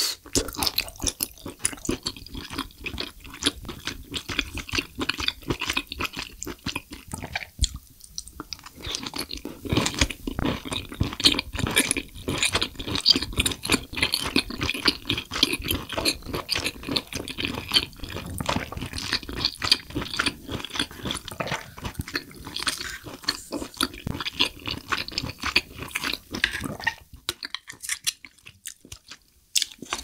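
Close-miked chewing of spicy braised abalone: steady wet, chewy mouth sounds with many small crackles, thinning out near the end.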